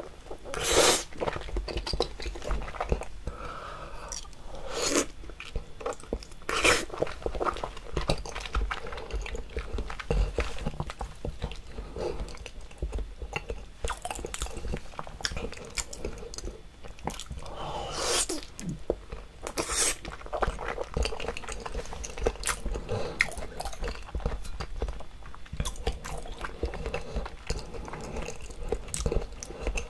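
Close-miked chewing and biting of a thick slab of raw salmon sashimi, with many small mouth clicks and several louder bites spread through.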